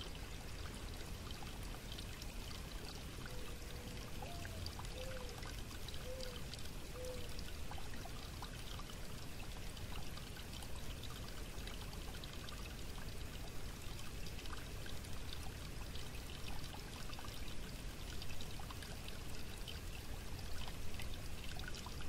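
Shallow rocky creek trickling and babbling steadily over stones and pebbles, with small splashing ticks throughout.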